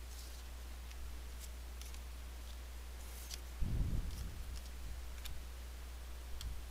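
Cardboard trading cards handled and laid down on a wooden tabletop: faint, scattered clicks and swishes of the cards, with a soft thump a little past halfway, over a steady low hum.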